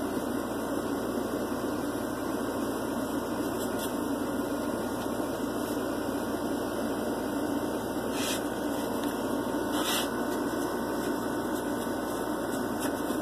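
Window air-conditioning unit running with a steady hum and rush of air, with a few faint clicks about two-thirds of the way through.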